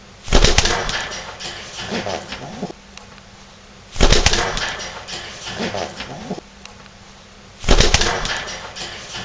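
Domestic pigeon cooing in a pattern that repeats about every four seconds: three times, a loud burst of noise followed by a few rising-and-falling coos.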